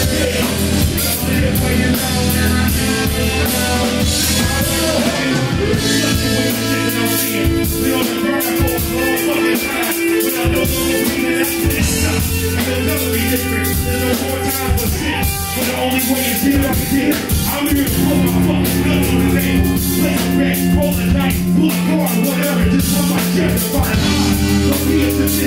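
Live rap-rock band playing loud: electric guitars and bass holding chords that change every few seconds over steady drums, with vocals over the top.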